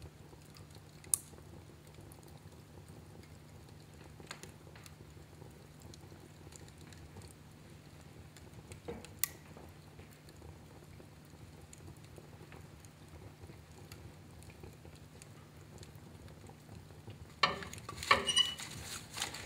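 Fire crackling in a fireplace: a low steady background with a few sharp, isolated pops, then a quick run of louder crackles and pops near the end.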